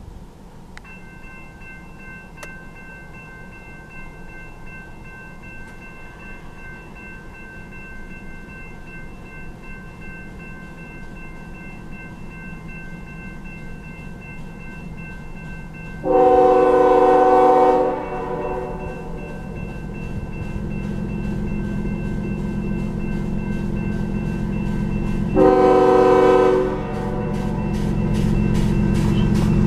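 Grade-crossing warning bell starts ringing about a second in as the gates lower. The lead GE ES44AC-H locomotive's air horn then sounds two blasts for the crossing, the first about two seconds long and the second about a second and a half, over the rising rumble of the approaching freight train, and a third blast begins at the very end.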